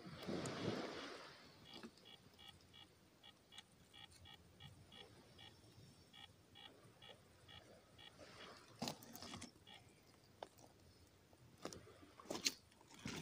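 Sticks and driftwood kindling being handled and laid for a fire on a stony beach: a rustle at the start and a few sharp wooden clacks near the end. A faint run of short high chirps repeats, about two or three a second, through most of it.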